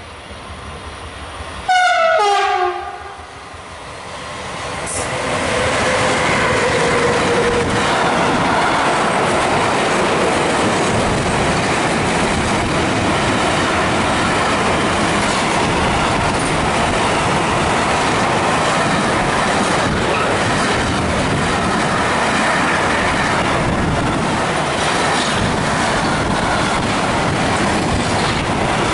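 An electric freight locomotive gives one short horn blast, falling slightly in pitch, about two seconds in as it approaches. It then passes, and a long intermodal freight train rolls by close with a steady rumble and clatter of wheels on the rails.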